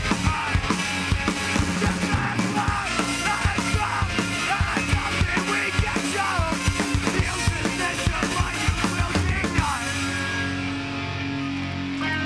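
Punk rock band playing live: pounding drum kit under distorted electric guitars and bass, with shouted vocals. About ten seconds in the drums stop and the guitars and bass ring out on a held chord as the song ends.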